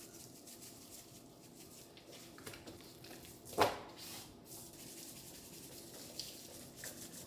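Gloved hands rubbing and patting dry seasoning into a rack of ribs on a cutting board: faint rubbing and handling noise, with one brief louder stroke about three and a half seconds in.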